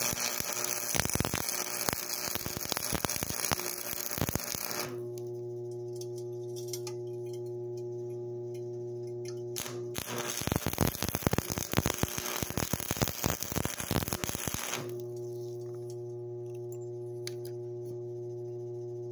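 Stick (arc) welding a steel pipe coupling onto a steel plate: the arc crackles and sputters in two runs of about five seconds each. Between and after the runs there is a steady electrical hum.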